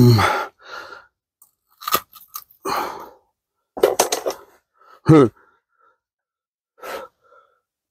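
Scattered short clicks and crunchy rustles as a hooked pike is handled and the hook worked out of its mouth, with a couple of short grunts, one falling in pitch about five seconds in.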